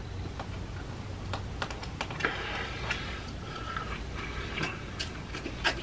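Close-miked eating sounds: a metal fork clicking and scraping irregularly in an aluminium foil takeout tray of fettuccine Alfredo, with soft chewing and mouth sounds between the clicks.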